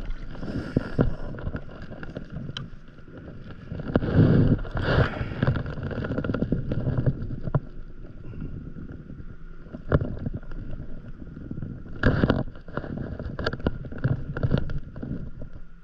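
Wind buffeting the microphone and small waves lapping against a paddleboard on open water, with gusty swells and a few short knocks and clicks from fishing tackle being handled.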